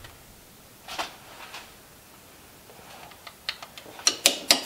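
Small metal clicks and taps as a ladle knocks against a metal jig mold held over a lead melting pot while molten lead is poured into the cavities one at a time. There is one sharp click about a second in, then a quickening run of taps near the end.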